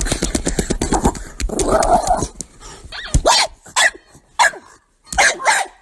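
Small fluffy dog vocalizing while held: a fast pulsing grumble, a longer call about two seconds in, then a string of short cries that fall in pitch.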